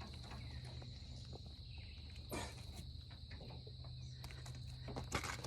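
Faint, steady high-pitched insect trill, with a brief rustle about two and a half seconds in.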